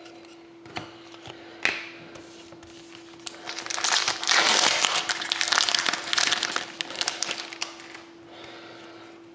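Foil trading card pack wrapper being torn open and crinkled, a dense crackle from about three seconds in that fades away near eight seconds. A few soft clicks of cards being handled come before it, over a faint steady hum.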